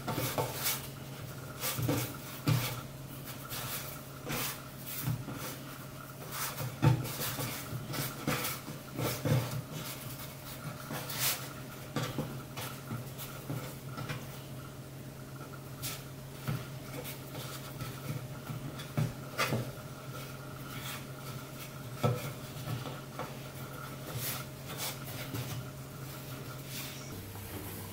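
Hands braiding soft bread dough on a wooden cutting board: irregular soft taps, knocks and slaps as the strands are lifted, crossed and pressed down. A steady low hum runs underneath and changes pitch just before the end.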